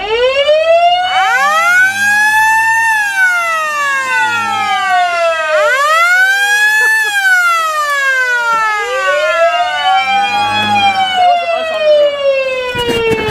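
A loud siren wails three times, its pitch climbing steeply and then sliding back down each time.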